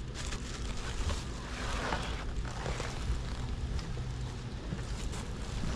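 Cardboard and foam packaging rustling and scraping as a speaker box is rummaged through, over a steady low rumble.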